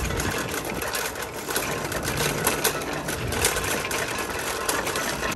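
Metal shopping cart pushed across rough, cracked asphalt, its wire basket and caster wheels rattling in a fast, steady clatter.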